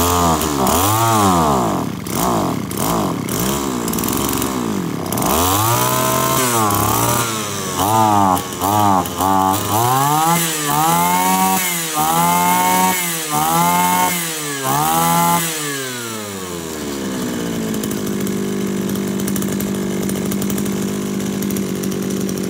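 Small two-stroke brush cutter engine blipped on the throttle, revving up and down about ten times in quick succession, then settling to a steady idle about 17 seconds in. The owner puts its slightly slow pick-up down to a fuel tank that has not been rinsed out.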